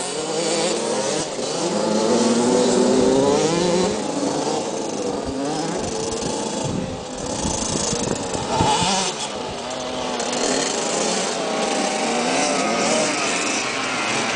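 Several small youth motocross bikes, among them a KTM 65 SX two-stroke, revving up and down together as they ride around a dirt loop. Their engine notes overlap, each one rising and falling as the riders open and close the throttle.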